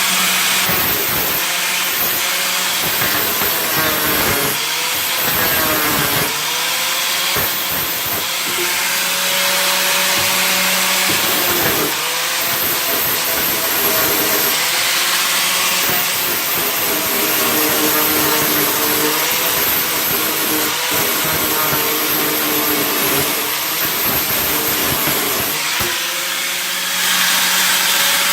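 A handheld power tool running in long stretches, its motor pitch sagging and recovering again and again as it is pressed into the work.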